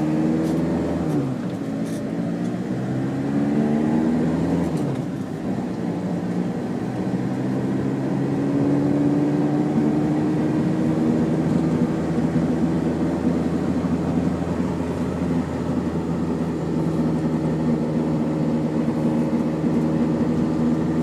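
Car engine heard from inside the cabin while driving. The revs rise and drop twice in the first few seconds, then the engine settles into a steady run whose pitch slowly climbs.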